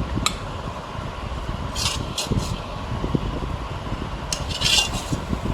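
A few short scrapes and clinks of a spoon or spatula against a pan as cooked chicken is transferred to a serving dish, over a steady low fan-like hum.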